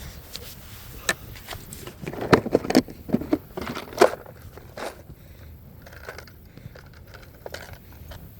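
Irregular clicks, knocks and scraping of fishing tackle being handled as a lure is changed, heard through a phone carried in a shorts pocket. The clatter is densest about two to four seconds in, with the loudest knocks near two and four seconds in.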